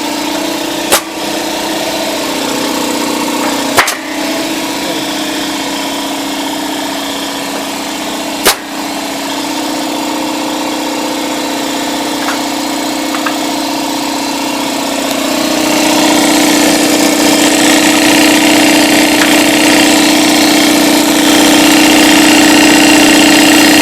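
Husky 60-gallon electric air compressor, with a 220-volt single-phase motor, running steadily with a constant hum. Three sharp clicks come in the first nine seconds, and the running grows louder about fifteen seconds in.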